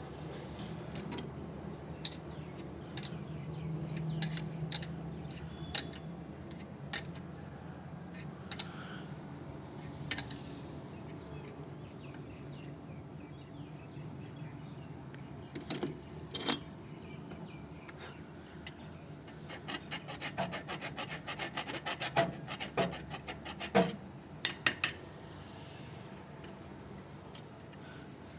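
Hand tools working on copper air-conditioner pipe: scraping and rubbing, with scattered sharp metallic clicks. A quick run of ticks comes in the second half.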